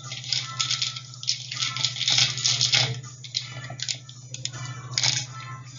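Plastic packaging crinkling and rustling as it is handled, in irregular crackling bursts, over a steady low hum.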